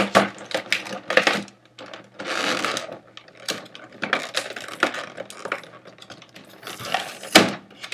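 Clear plastic toy packaging being handled and pulled apart: a rigid plastic tray and a plastic bag crinkling, with irregular sharp clicks and crackles. A longer rustle comes about two seconds in, and a louder sharp crack near the end.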